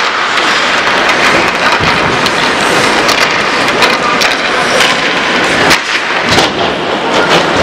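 Ice-rink din during youth ice hockey play: a dense, echoing rushing noise of skates on ice, with scattered sharp clacks of sticks and puck.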